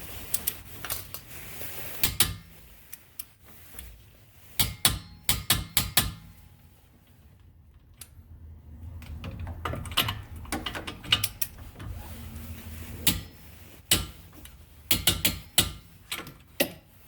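Hand tools and metal car parts being handled, clicking and clinking: scattered sharp clicks, with quick runs of them about five seconds in and again about fifteen seconds in.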